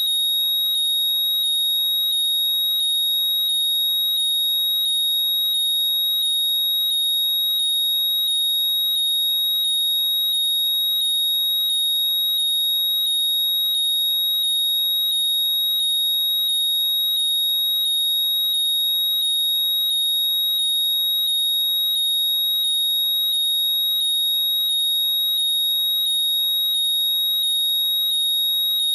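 Apple AirPods 'Find My' locating sound playing loudly: a steady, high-pitched tone overlaid with a quick, evenly repeating series of rising chirps.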